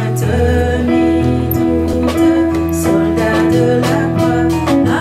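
Church hymn music: instrumental accompaniment of long held notes over a steady bass line.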